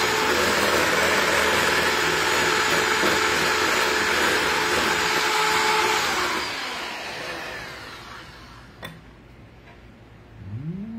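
Electric hand mixer (Cuisinart) running at speed, its beaters whipping egg whites for meringue in a glass bowl. The steady motor noise dies away about six to eight seconds in, followed by a single click.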